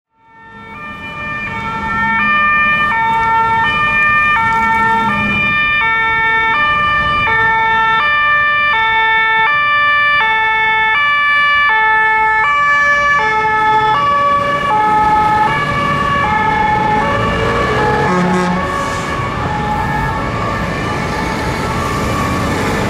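Fire engine's two-tone siren, a high and a low note alternating about every 0.7 s. It fades in over the first couple of seconds, and the notes drop slightly in pitch after about two-thirds of the way through, over a steady traffic rumble.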